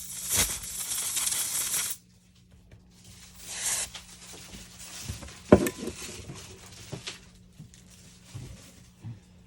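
Close-up handling sounds from work on the opened Samsung Galaxy A52. A rasping hiss lasts about two seconds at the start and a shorter one comes near four seconds. Then one sharp click, about five and a half seconds in, is followed by a few light taps.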